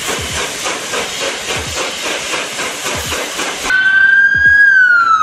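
Train sound effect: a steady rushing, hissing noise of a train on the move. About three and a half seconds in it cuts off and an ambulance siren begins, a single wailing tone that rises slightly and then slowly falls.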